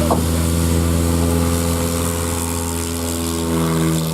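Light aircraft's piston engine and propeller running steadily at a fairly even pitch.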